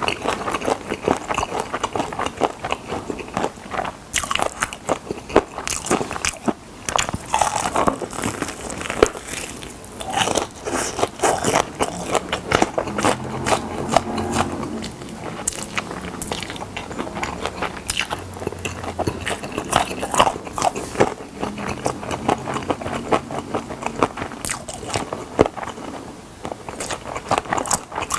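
Close-up crunchy bites and chewing of fried chicken drumsticks, with crisp crackling of the coating between bites.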